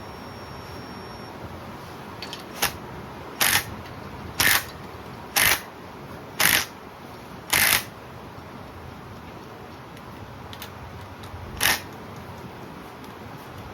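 Ratchet wrench clicking in short strokes, about one a second, then once more near the end, as rocker-arm nuts are snugged down on the rebuilt engine.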